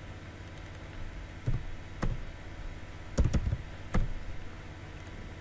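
A few separate computer keyboard keystrokes and clicks, with a quick cluster just past three seconds, over a steady low hum.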